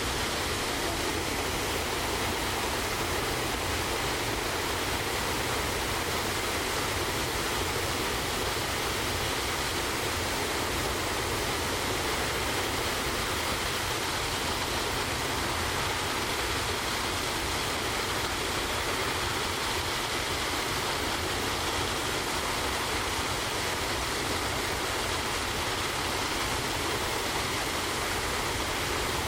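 Waterfall pouring into a creek: a steady, even rush of falling water that does not change.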